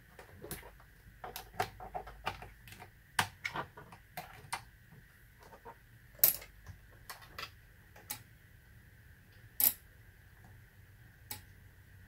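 Scattered irregular clicks and light taps, a few sharper than the rest, as power leads, a multimeter and an opened laptop's parts are handled.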